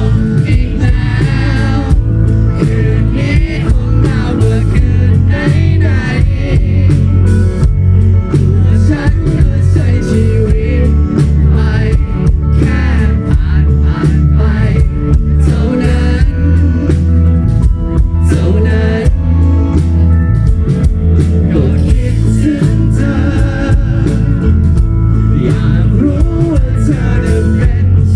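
Live pop-rock band playing a song: drums, bass, guitar and synthesizer with a lead vocal singing over them.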